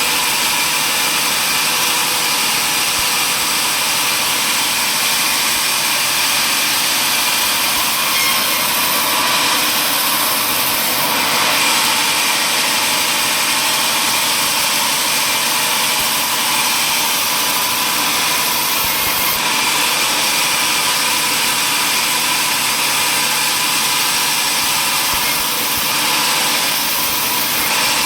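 Sawmill table saw running steadily, a loud constant machine noise that shifts slightly a few times.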